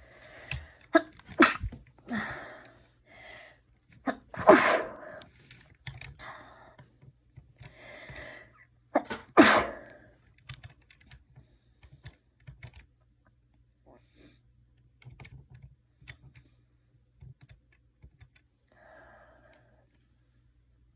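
A person sneezing several times, with breathy in-breaths between the sneezes; the loudest come about a second and a half, four and a half and nine and a half seconds in. After that only faint small clicks and a soft breath are heard.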